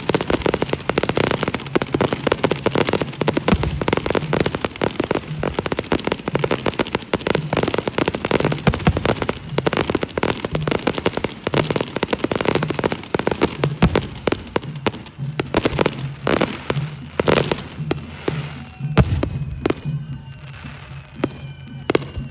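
Fireworks going off in a rapid, dense barrage of bangs and crackles, thinning to scattered bursts in the last few seconds.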